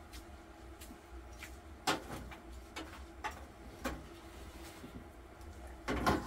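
Scattered short knocks and clatters of cookware and the wood stove being handled, the loudest cluster about six seconds in, over a low steady hum.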